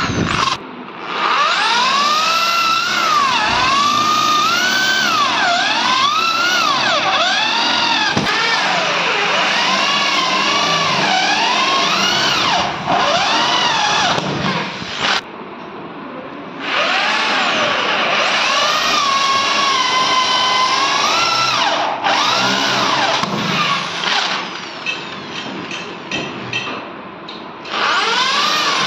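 Electric hand drill boring holes through plywood: a motor whine that keeps rising and falling in pitch as the bit bites and frees. It drops away briefly about halfway through and again near the end.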